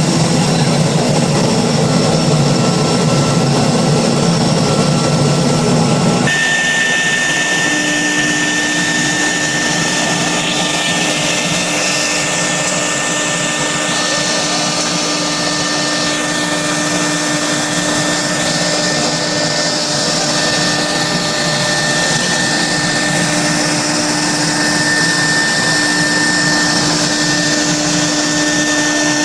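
CNC router cutting a 3–4 mm composite panel: loud, steady machining noise. About six seconds in, the low rumble drops away and a steady high whine with a lower hum takes over.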